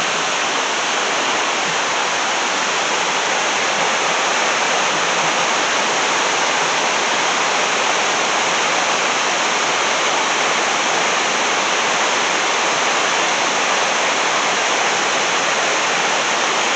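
River water rushing over a rocky ledge and boulders in white-water rapids, a loud steady roar with no letup.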